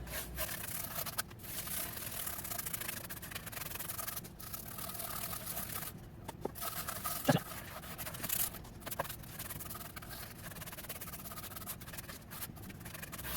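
A brush rubbing and scraping over a wood slab in short strokes, spreading a coat of penetrating epoxy, with one short falling squeak about halfway through.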